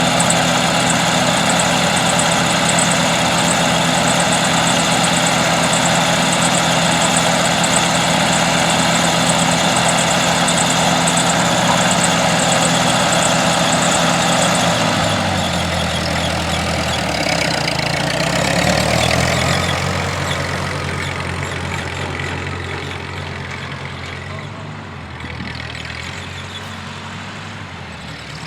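Ford 8N tractor's four-cylinder flathead engine running steadily; about halfway through its pitch drops and it grows gradually quieter toward the end.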